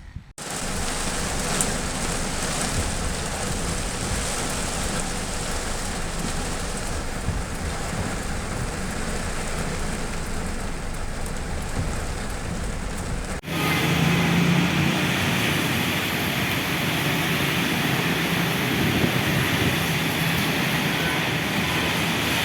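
Heavy rain pouring down, a steady dense hiss. About two-thirds of the way through it cuts abruptly to another shot where the downpour sounds brighter, with a low hum beneath it.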